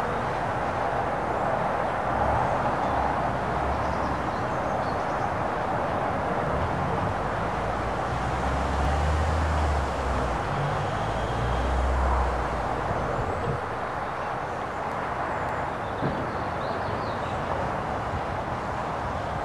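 Distant steam-hauled passenger train running along the line: a steady rumble with no clear exhaust beat, swelling lower and louder about halfway through.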